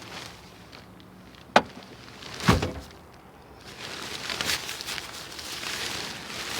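A sharp click and, about a second later, a heavier thump from the old parked car's body or door, then a few seconds of soft rustling.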